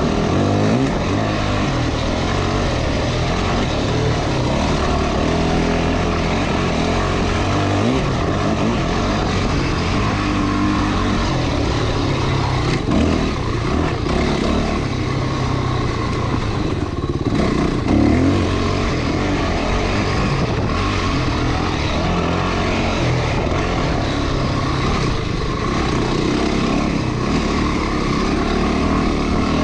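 Off-road motorcycle engine running under way, its revs rising and falling with the throttle over steady road and wind noise.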